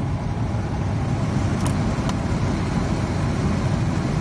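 A Holden VY Commodore's climate-control blower fan running steadily with air rushing through the vents, set to windshield mode. Two short clicks come close together about two seconds in.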